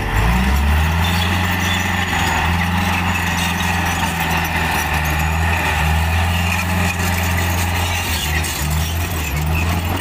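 Caterpillar D3C LGP crawler bulldozer's diesel engine running steadily as the machine drives and turns on its tracks. The engine note shifts a little near the end.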